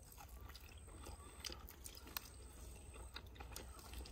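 A person faintly biting and chewing a grilled chicken wing, heard as small irregular clicks and crunches over a low steady hum.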